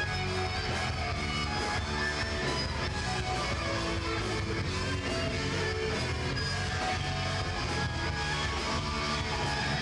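Live steel drum orchestra with a lead electric guitar playing a heavy metal rock tune over a steady beat.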